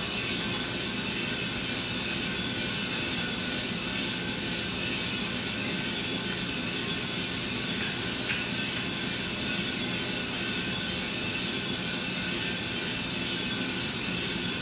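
Gas-fired 3-kilogram drum coffee roaster running mid-roast, with beans in the drum approaching dry end: a steady rush from its blower, burner and turning drum, with one faint click about eight seconds in.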